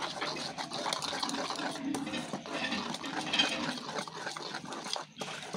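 Wire whisk beating gram-flour batter in a steel bowl: a rapid, continuous run of scraping and clicking strokes of the wires against the metal, with the wet sound of the batter being mixed.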